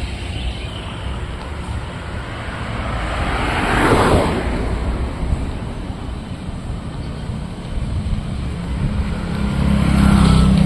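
Street traffic: a steady rumble of cars and motorcycles, one vehicle passing close about four seconds in, and a low engine hum building near the end.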